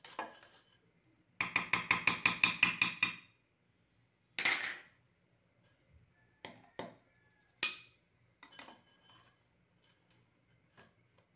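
Mesh strainer knocked and rattled against a metal cooking pot: a quick run of about a dozen clanks over roughly two seconds, then a scrape and a few single clinks as the strainer is handled on the pot.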